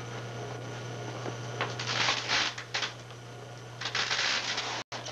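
Short bursts of rustling and scuffing, about three, as a person is seated in a patio chair and it is moved, over a steady low hum. The sound drops out for an instant just before the end.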